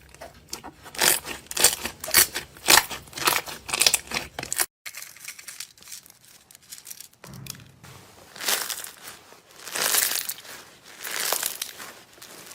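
Slime being squeezed and stretched by hand, crackling and crinkling in quick repeated squishes. The sound drops out for a moment about five seconds in, then returns as slower, longer swells of crackle.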